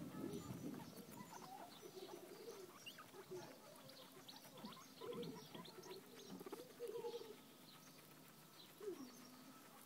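Guinea pigs chewing fresh grass, with faint crunching clicks, while giving short, soft, low-pitched squeaking calls that glide up and down. One call falls clearly near the end.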